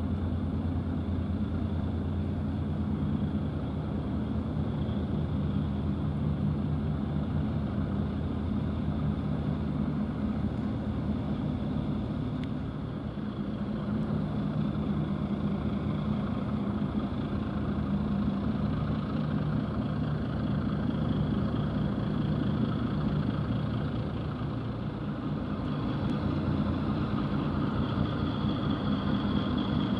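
Twin Niigata 6L28HX six-cylinder diesel engines of a tugboat under way at speed, a steady low drone, with the rush of water from its bow wave.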